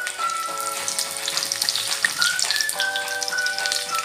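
Small shallots and curry leaves sizzling and crackling in hot oil in a pan, frying as a tempering for a curry. Slow background music of held notes plays over it.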